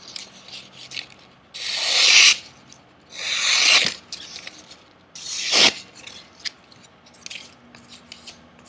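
Edge of a Martin Yan Chinese chef knife drawn in three long hissing strokes, each growing louder and then stopping sharply, with light scratching between them.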